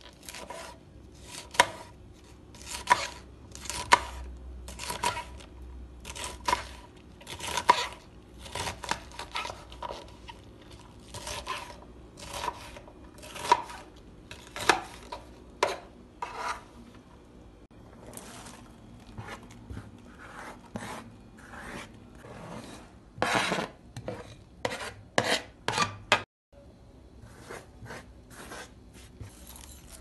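Kitchen knife chopping thin green peppers on a plastic cutting board, in separate strokes about one a second. There is a short pause past the middle, then a burst of louder, quicker strokes near the end.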